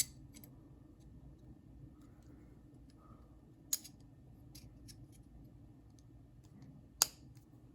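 Small clicks and taps of metal pocket-knife parts being handled while a handle scale is fitted onto the knife, with a sharper click a little under four seconds in and the loudest click about seven seconds in.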